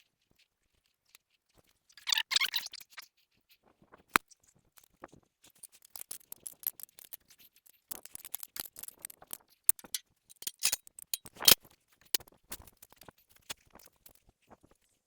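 Hand work reconnecting wires to a tractor starter switch: scattered small clicks, scrapes and rustles of tools and wire connectors being handled, with a short rustling burst about two seconds in and a sharp click about four seconds in.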